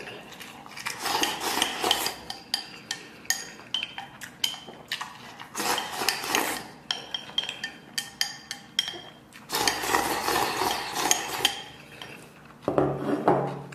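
Wooden chopsticks clinking and scraping against a ceramic bowl of soup-soaked rice, many sharp taps, with stretches of noisy eating in between and a short low hum near the end.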